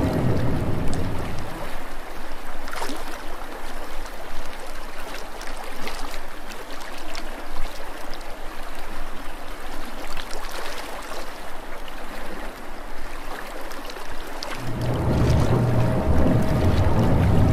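Water sloshing and trickling around a sinking cardboard model ship, with scattered small ticks and pops. A low rumble is heard briefly at the start and again in the last few seconds.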